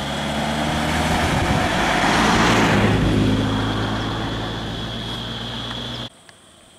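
A motor vehicle driving past on the road: its engine hum and tyre noise swell to a peak about halfway through, then fade, over a steady high-pitched whine. The sound drops away abruptly near the end.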